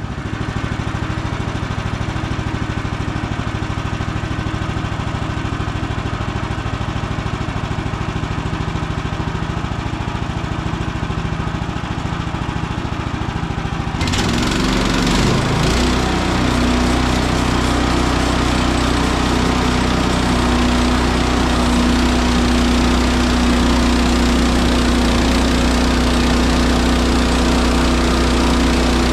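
Woodland Mills HM130 Max sawmill's gas engine idling as it warms up, then revving up about halfway through, its pitch climbing before it holds steady at a higher, louder speed.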